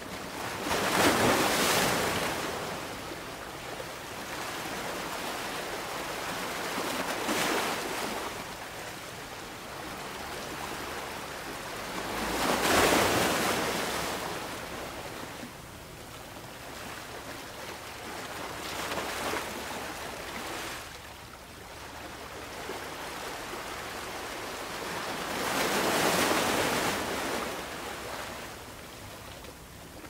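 Ocean waves breaking on a beach: the surf surges about every six seconds, the three biggest breakers about a second in, near the middle and near the end, with a steady wash of water between them.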